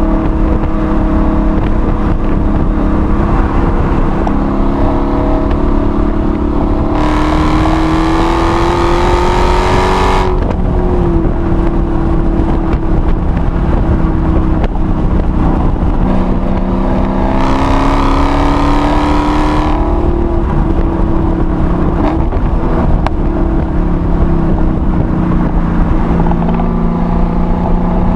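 Hellcat's supercharged 6.2-litre V8, heard from inside the car on track, running at part throttle between two hard full-throttle pulls. The engine note rises steeply about seven seconds in and again about seventeen seconds in, each pull lasting two to three seconds before the pitch drops sharply.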